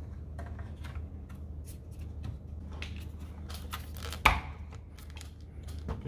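Plastic parts of a split air conditioner's indoor unit clicking and rattling as the blower fan's bearing housing is fitted back into the side frame, with one sharp, loud click about four seconds in.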